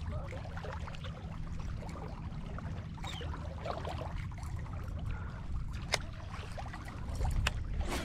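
Steady low rumble of wind and water at a lakeshore, with a few sharp clicks, the loudest about six seconds in.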